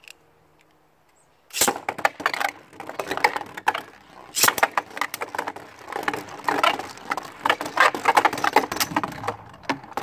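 Two Beyblade Burst spinning tops launched into a plastic stadium about a second and a half in, then spinning, scraping and clacking against each other and the stadium walls with many sharp hits.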